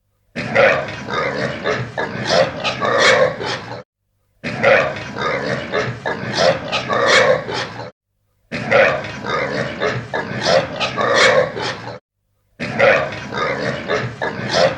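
Farm animal calls: one recording about three and a half seconds long, played four times over with short silent gaps between.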